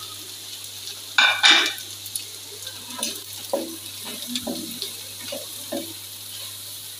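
Shredded cabbage and scrambled egg being stirred in an oiled wok with a wooden spatula: short scraping strokes against the pan over a faint steady sizzle of frying. The loudest strokes come a little over a second in.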